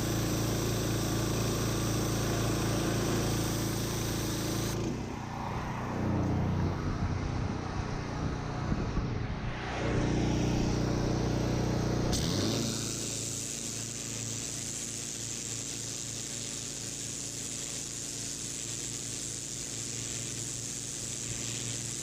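Pressure washer's engine running, its note shifting and wavering through the middle stretch, then settling about halfway through under a steady hiss of high-pressure water spray.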